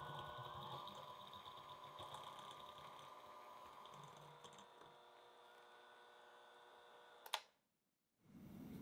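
Electric hand mixer running steadily, its beaters whipping butter in a bowl with a light clatter. A sharp click about seven seconds in, then abrupt silence.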